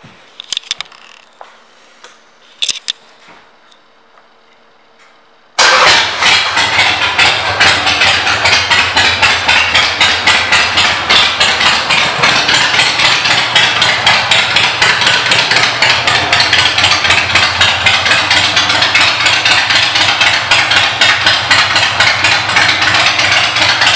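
Harley-Davidson Sportster 883's air-cooled V-twin with Vance & Hines aftermarket pipes, coming in suddenly about five and a half seconds in after a few faint clicks, then running steadily with a loud, even pulsing exhaust beat.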